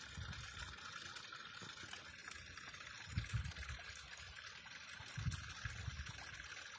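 Small mountain spring trickling down a rock face: a steady hiss of running water, with a few low thuds about three and five seconds in.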